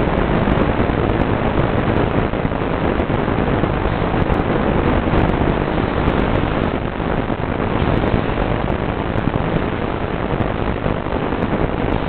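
Steady, loud hiss like radio static, an even rushing noise with no motor or engine tone in it.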